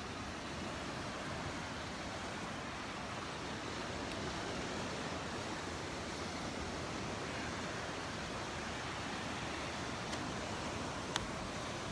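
Steady wash of Gulf surf on a sandy beach, an even rushing noise without pauses. A single sharp click sounds near the end.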